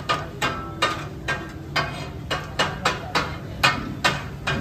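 Metal spatulas striking and scraping a large flat tawa griddle as fish is chopped and tossed for katakat. It makes an irregular clatter of sharp, ringing metal strikes, about two to three a second.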